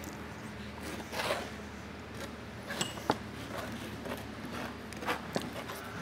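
A paper-faced sheet of glass mosaic tile being handled and pressed by hand into a wet thinset bed: rustling and scuffing, with a few small clicks, the sharpest about three seconds in.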